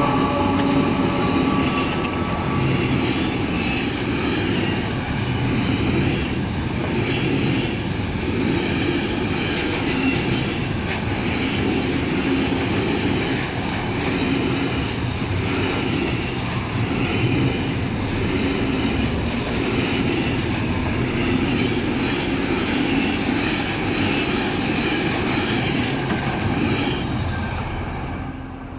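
Container freight train rolling past: a steady rumble of wagon wheels on rail with a regular clatter as each wagon's wheelsets go by, dying away near the end as the last wagons pass.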